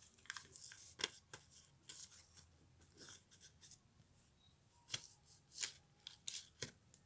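Newspaper and ruled notebook paper handled and folded by hand: faint, scattered crinkles and rustles, with sharper crackles about a second in and again between about five and six and a half seconds.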